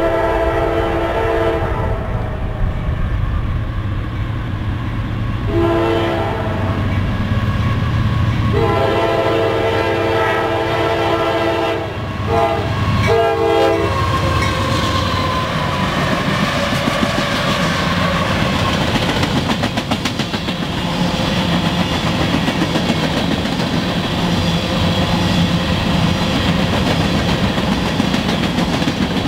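Freight train led by a GE CM44AC diesel-electric locomotive sounding its air horn for a road crossing: a series of blasts, the longest of about three seconds, ending about fourteen seconds in. The four GE locomotives then pass close by with a slowly falling whine, and the grain hopper cars follow with a rhythmic clickety-clack of wheels over rail joints.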